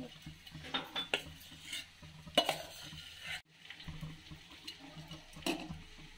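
A metal spatula scrapes and taps against an aluminium pot as cooked rice is spread and pressed into a layer. The strokes are irregular, with the sharpest clink about two and a half seconds in.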